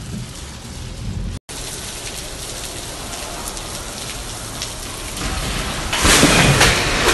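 Steady rushing hiss of pouring rainwater, broken by a brief dropout about a second and a half in and growing louder near the end.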